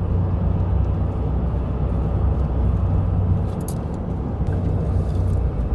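Steady low engine rumble with a constant hum underneath, with no clear changes.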